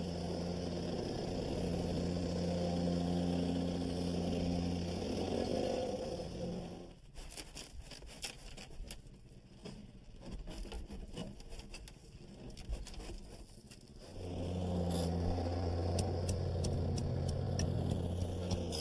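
Gas-powered vibratory plate compactor running steadily, packing a base of 3/4-inch crushed stone and stone dust. About seven seconds in the engine sound gives way to quieter scraping and clicking of stone being dumped from a wheelbarrow and raked, and about fourteen seconds in the compactor is running again.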